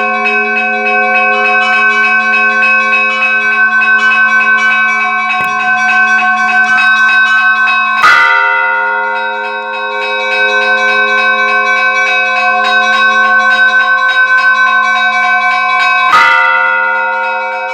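Church bells being rung in the Russian style: small bells struck in a quick, busy pattern over the sustained ringing of several bells. A heavy bell strikes twice, about eight seconds apart, the loudest moments.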